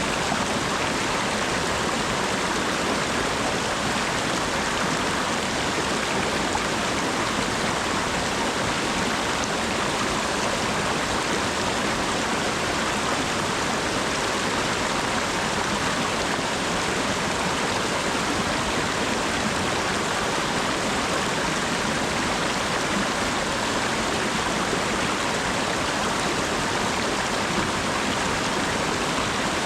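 Steady rain falling, an even hiss without a break or change.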